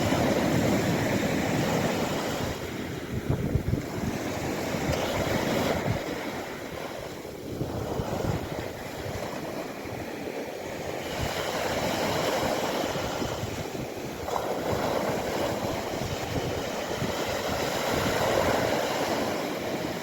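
Mediterranean sea waves breaking and washing on the shore, the surf swelling and easing every few seconds, with wind buffeting the microphone.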